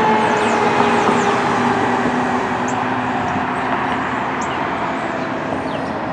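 Street traffic noise around a responding 2016 Pierce Arrow XT fire engine. A steady siren-like tone slowly falls in pitch throughout.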